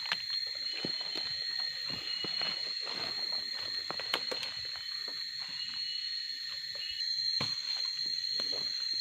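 Tropical forest insect chorus, a steady high-pitched drone, with irregular footsteps and rustling of someone walking through undergrowth and a few short chirps.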